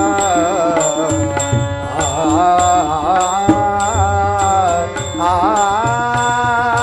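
Marathi devotional abhang to Vitthal: a male voice sings an ornamented melody over a harmonium's held chords. Small brass hand cymbals (taal) clink in a steady beat, about two strikes a second.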